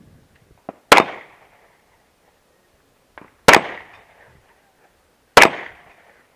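Three pistol shots from a semi-automatic handgun, fired slowly about two seconds apart, each trailing off in a short echo.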